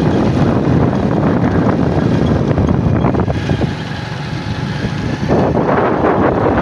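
A vehicle driving along a road, its running noise mixed with wind buffeting the microphone; it eases for a couple of seconds about halfway through, then comes back up.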